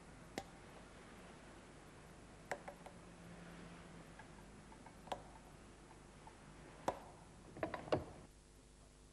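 BMW M42 timing chain tensioner piston being pushed in against a vise jaw, its retaining ring clicking into its grooves: single sharp clicks a couple of seconds apart, then a quick run of clicks near the end. The clicks mark the piston being set into its assembly position, which is reached when the ring has clicked in four times.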